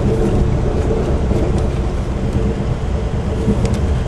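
Steady rumble of a passenger train running at speed, heard inside an Amtrak Metroliner cab car, with a few faint clicks over the low rolling noise.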